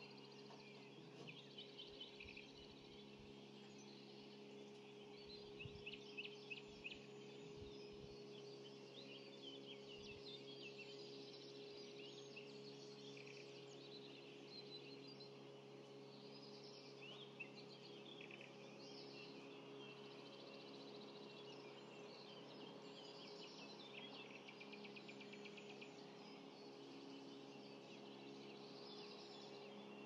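Dawn chorus: many songbirds singing at once, with overlapping trills and chirps, over a faint steady hum. A few soft low thumps come in the first eight seconds.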